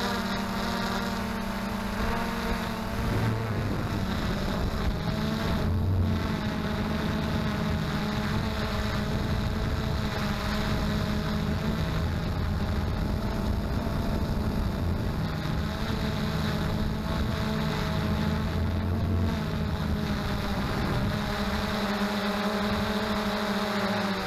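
XK Detect X380 quadcopter's motors and propellers humming steadily, the pitch shifting a little as they work against strong wind. Wind buffets the microphone in gusts, strongest about a third of the way in and again near the end.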